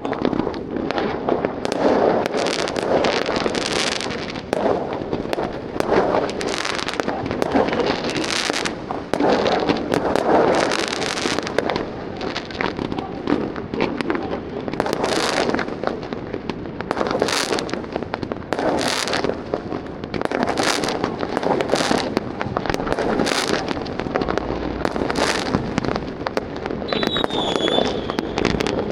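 New Year's fireworks and firecrackers going off together in a dense, unbroken run of bangs and crackling, with a brief high whistle near the end.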